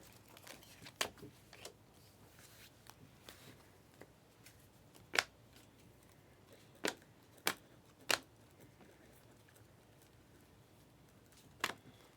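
Trading cards being handled as a pack is gone through: a handful of sharp, scattered clicks and snaps of card stock over faint rustling.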